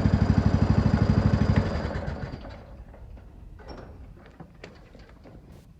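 Lawnmower engine running with an even pulse, then shut off about a second and a half in and running down to a stop. A few faint clicks follow.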